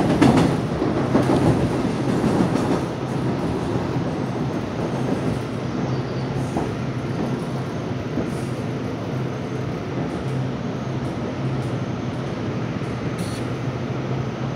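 Korail Class 311000 electric multiple unit running at speed, heard from inside the car: a steady rumble of wheels on rail with a low steady hum underneath, a little louder for the first few seconds.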